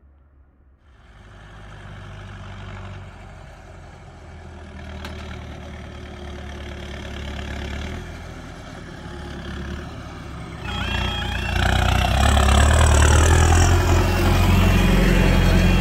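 Massey Ferguson tractor's diesel engine running as it approaches and passes close by. About eleven seconds in, the level crossing alarms start sounding, a loud repeating two-pitch tone: the automatic half barrier crossing activating for an approaching train.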